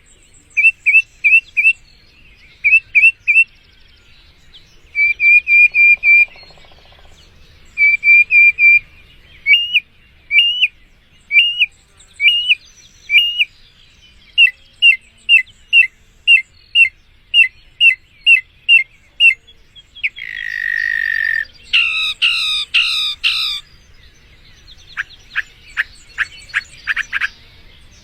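A songbird singing in phrases of quick, repeated whistled notes separated by short pauses. About twenty seconds in comes a harsher buzzy note, then a fast run of falling notes and a series of dry clicking notes near the end.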